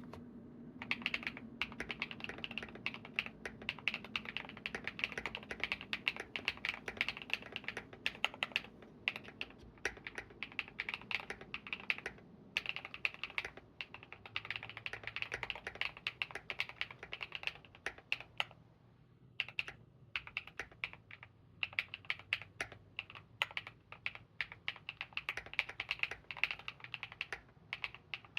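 Typing on a Monsgeek M2 mechanical keyboard fitted with lubed G-Squared White Warrior v2 linear switches and KAT-profile keycaps: a fast, continuous run of keystroke clacks. The typing pauses briefly about twelve seconds in and again for about a second near nineteen seconds.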